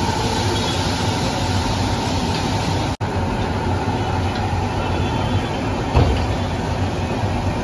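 Battered cauliflower deep-frying in a large kadai of hot oil over a gas burner: a steady, loud sizzle with the burner's rumble beneath it. The sound cuts out for an instant about three seconds in, and there is a short knock about six seconds in as the slotted spoon is lifted from the pan.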